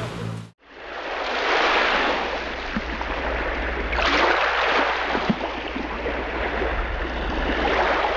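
Rushing of sea water, swelling and fading every couple of seconds like waves washing past. In the first half second a boat engine hum cuts off suddenly.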